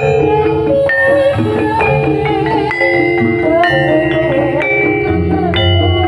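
Javanese gamelan-style ensemble music. Mallet-struck metal keys ring out note after note over low drum strokes, with a wavering melody line running above them.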